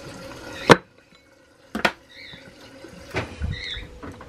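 Kitchen handling sounds: a short stretch of liquid sounds, a sharp click under a second in, then a few scattered knocks and light clatter.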